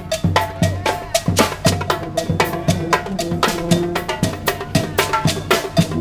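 Brass street band playing, led by drums that keep a steady beat of about three strokes a second with a bright clacking percussion part, under held horn notes.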